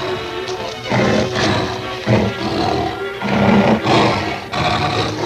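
A tiger roaring and snarling in several bursts about a second apart, over background music.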